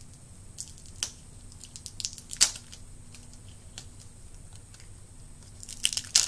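Scattered sharp clicks and crackles of a small plastic surprise egg being twisted and picked at by hand, the loudest about two and a half seconds in, with a quicker run of clicks near the end.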